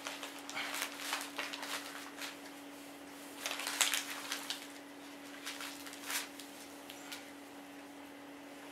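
Scattered rustling and scraping from handling, with the loudest cluster about three and a half seconds in, over a steady low hum.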